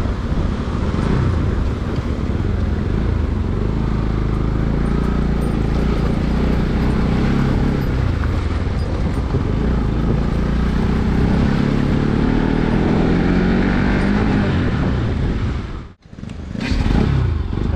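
Motorcycle engine running under way, its pitch drifting up and down with the throttle. The sound cuts out abruptly about sixteen seconds in and comes back a moment later.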